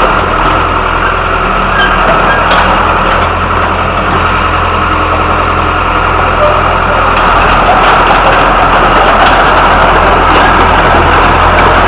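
Hitachi EX60 hydraulic excavator's diesel engine running steadily, getting a little louder about seven seconds in.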